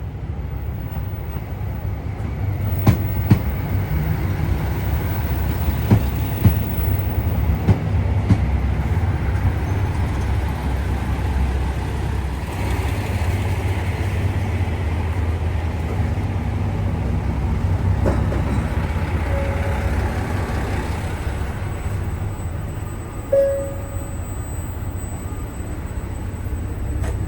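Diesel railcar running along the track: a steady low rumble with a few sharp clicks early on, and a short high tone twice near the end.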